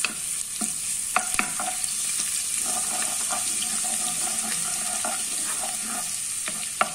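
Crushed garlic sizzling in hot oil in a nonstick pot, stirred with a wooden spoon that knocks against the pot a few times in the first second and a half and again near the end.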